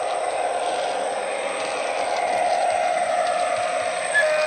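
Hornby TXS digital sound decoder in a model Class 66 diesel locomotive playing the engine sound of the real locomotive's EMD two-stroke diesel through the model's small speaker. The sound grows louder as the model approaches, and a brief higher tone sounds near the end.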